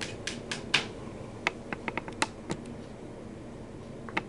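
A series of light, irregular clicks, about a dozen, bunched in the first two and a half seconds, then a pause and one more click near the end, over a faint room hiss.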